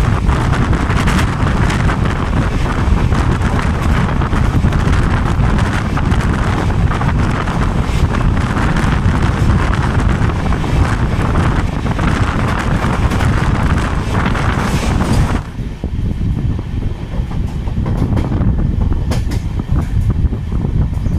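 Express train running at speed, heard from an open coach doorway: a loud rush of air and wheels on rail with frequent clicks over joints. About 15 seconds in it changes abruptly to a duller, lower rumble with occasional clicks.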